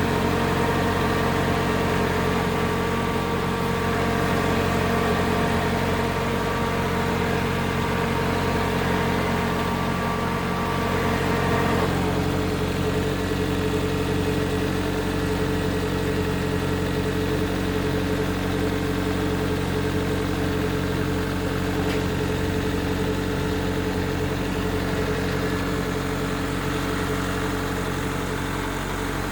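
Chevrolet Corsa Wind's 1.6 four-cylinder engine idling steadily, freshly repaired. A few of its higher tones change about twelve seconds in.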